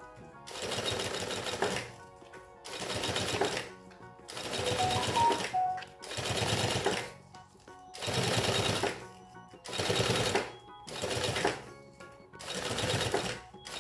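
Industrial sewing machine stitching piping onto a fabric bag panel in short runs of about a second each, about eight times, stopping briefly between runs while the work is turned along the curve.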